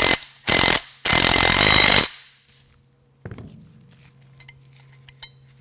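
Cordless impact driver hammering a nylock nut tight with a 9/16 socket on the steel bracket plate of an air bag kit. It gives a short burst, then one lasting about a second that stops about two seconds in. Faint clicks of the metal plate being handled follow.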